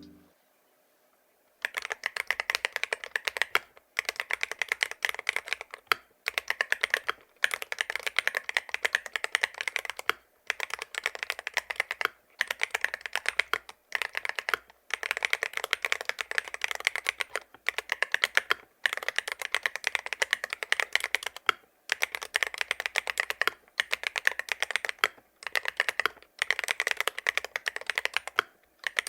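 Typing on an IROK MG75 Max aluminium 75% keyboard with magnetic switches and polycarbonate keycaps: quick runs of keystroke clacks broken by short pauses every few seconds, starting after a second and a half of silence.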